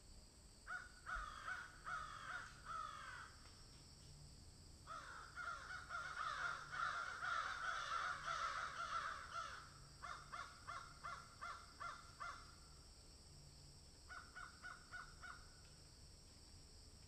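Faint bird calls in several runs of quick chirps, the longest and loudest about the middle, then shorter runs of rapid evenly spaced calls. A steady low hum and hiss lies beneath.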